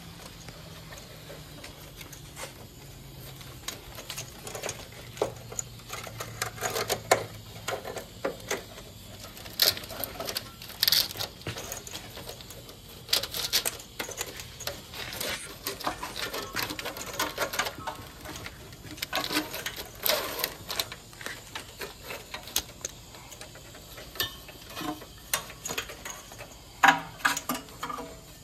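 Nylon fuel lines in corrugated plastic loom being fed along a truck's frame: irregular clicking, tapping and scraping as the plastic rubs and knocks against the metal underbody.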